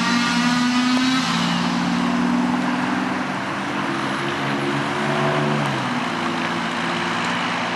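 Small rental pickup truck's engine running under way, its note changing in steps as it accelerates through the gears, over steady road noise.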